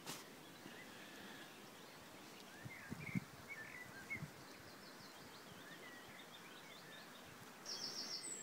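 Faint outdoor background with birds chirping: short rising and falling calls scattered through the middle, and a quick run of four high chirps near the end. A couple of soft low knocks about three seconds in.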